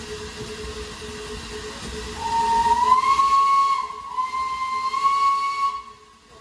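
Steam whistle of LNER A3 locomotive 60103 Flying Scotsman, blown twice about two seconds in: a long single-note blast that rises slightly in pitch as it opens, a brief break, then a second blast that stops a little before the end. Steam hiss and slow running noise of the train underneath.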